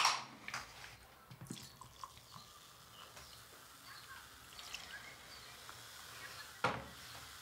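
Beer poured from a glass bottle into a drinking glass: a faint trickle with small drips. A sharp click at the start and a knock near the end.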